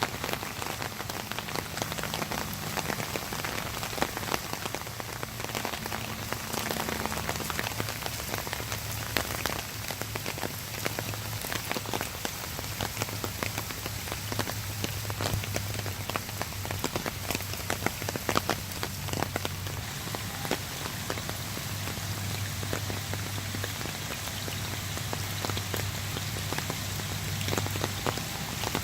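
Steady water noise full of small drop-like ticks, like rain spattering or fast-running floodwater, with a faint low hum underneath that shifts pitch a few times.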